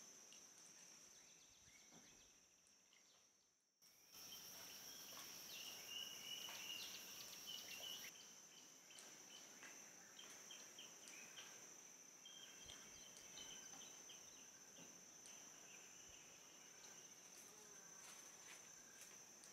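Faint rainforest ambience: a steady high-pitched insect drone with scattered faint bird chirps. The sound drops out briefly about four seconds in, then returns slightly louder.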